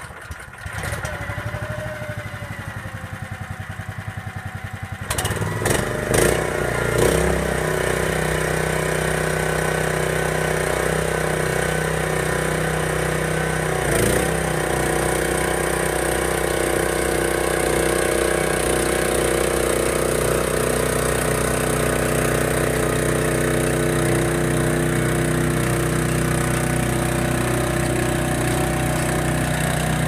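Small air-cooled gas engine on a Cart-Away conveyor loader, just pull-started, running at a low idle for about five seconds. It is then throttled up with a few quick revs and settles into a steady run at higher speed.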